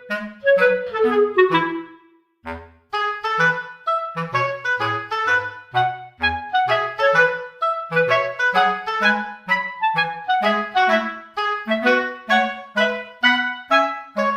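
Bouncy background music: a quick tune of short notes over a bouncing bass line, with a falling run of notes about a second in and a brief pause just after two seconds.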